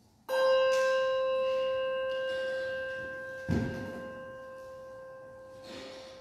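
A handbell struck once, ringing with a long, clear tone that slowly fades. A dull thump comes about three and a half seconds in while the bell is still ringing.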